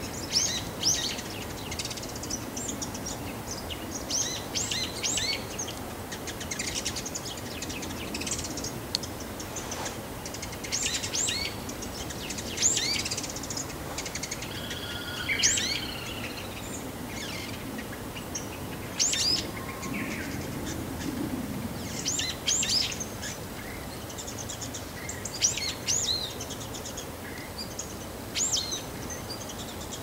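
Male bull-headed shrike singing its subsong: a long, rambling run of short, high chirps and quick sweeping notes in irregular clusters.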